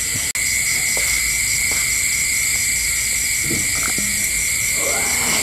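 Night chorus of frogs and insects: a steady high-pitched drone with a regular pulsing trill above it. A few faint knocks sound under the chorus.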